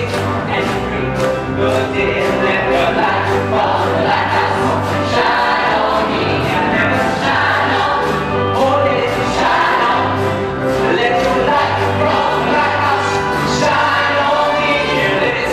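Music with a choir singing over a steady beat and a repeating bass line.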